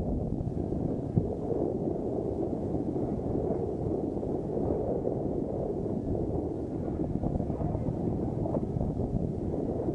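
Wind buffeting the camera microphone on an open boat at sea: a steady low rumble that rises and falls, with no clear engine tone.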